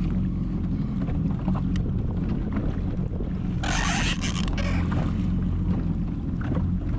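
Jet ski engine idling steadily under wind noise on the microphone, with a short burst of hiss a little under four seconds in.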